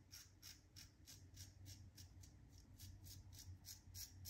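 Safety razor blade scraping through stubble in quick short strokes, about four a second: faint, even scratching of a razor shave in progress.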